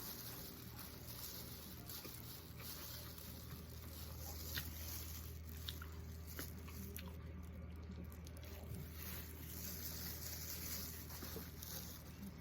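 Quiet eating sounds: chewing, with a few light clicks of cutlery against the dish, over a steady low hum.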